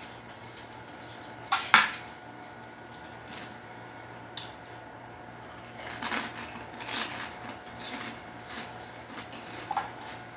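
Eating by hand from a foil tray of chicken and rice: two sharp clinks about one and a half seconds in, a lighter click a few seconds later, then scattered rustling and mouth sounds.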